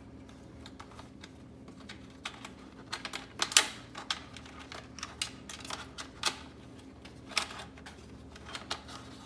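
Irregular light clicks and taps of hands working the door lock assembly and its rubber grommet into a car door, with the sharpest click about three and a half seconds in. A faint steady hum lies underneath.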